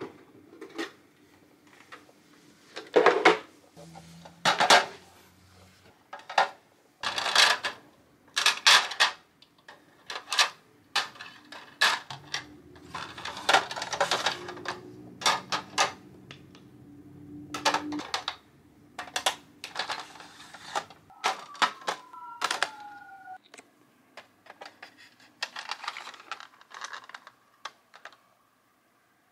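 Clear plastic drawer organizer and makeup being handled: an irregular string of sharp plastic clicks and clacks as the drawers are worked and makeup pencils, liners and tubes are set into them.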